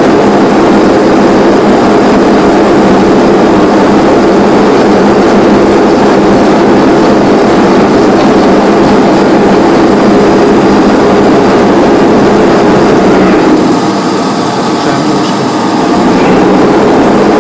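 Metal lathe running steadily with a parting tool cutting into a spinning steel steering-rod end, a loud steady mechanical noise with a low hum. It eases off for a couple of seconds about fourteen seconds in, then comes back.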